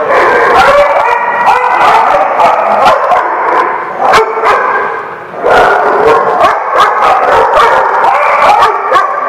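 Several dogs barking and yipping over one another, loud and nearly continuous, with a brief lull about halfway through.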